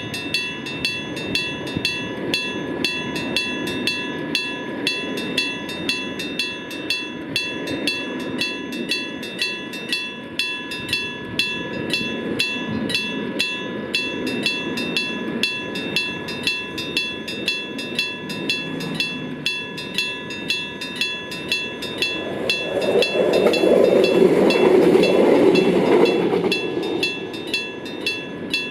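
Level-crossing warning bell of the old AC electric-bell type ringing steadily, a metallic clang about one and a half times a second. Under it a rail vehicle rumbles past, swelling loudest near the end before fading.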